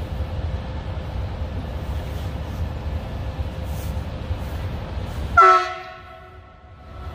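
Horn of a Siemens Smartron electric locomotive: one short, loud blast about five seconds in, several notes at once dying away over about a second. Beneath it runs a steady low rumble that drops away briefly after the blast.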